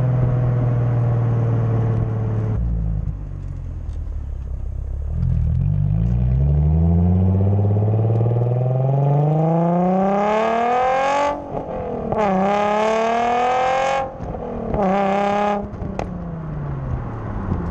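Nissan Z NISMO's V6 through a dual-exit titanium Tomei exhaust, pulling hard under acceleration. The revs climb in long rising sweeps, with sudden cuts at upshifts about eleven and fourteen seconds in and a short burst of throttle near the end.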